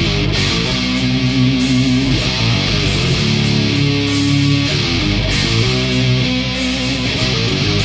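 Loud heavy metal music: electric guitar chords over a bass line.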